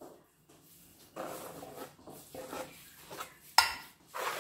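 Chopped coriander and mint being scraped off a cutting board into a glass baking dish: a few short, soft scrapes and rustles, with one sharp knock about three and a half seconds in.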